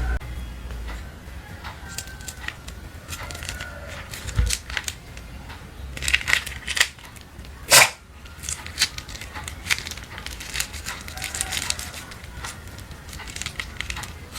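Hands handling plastic while making slime: irregular crinkling, tapping and clicking, with one sharp click about eight seconds in.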